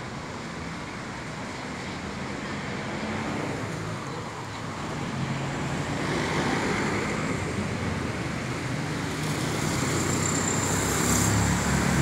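Road traffic passing on a wet street: cars and pickups going by with engine and tyre noise, growing louder from about halfway as vehicles pass close.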